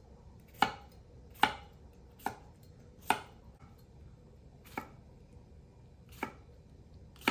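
Knife slicing pickling cucumbers into chunks, each cut ending in a sharp knock of the blade on the cutting board: about seven cuts at an uneven pace of roughly one a second.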